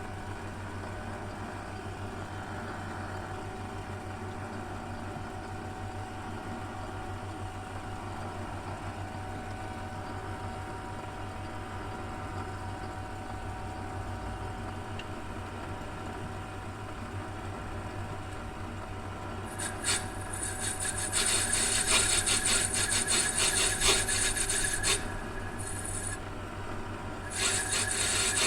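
Small lathe running with a steady motor hum; about twenty seconds in, a harsh scraping cut starts as the spinning clock bush stock is worked down to size, stops briefly and resumes near the end.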